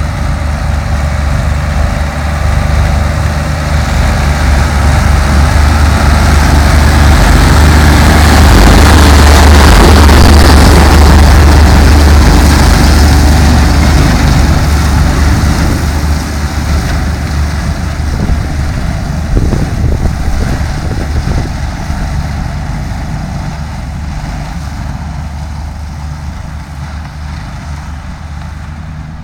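Tractor engine pulling a 1967 Taarup trailed forage harvester under load while it cuts and blows grass silage into a trailer, a steady low drone with the machinery's rushing noise on top. It grows louder as the outfit passes close, about a third of the way in, then fades as it moves away.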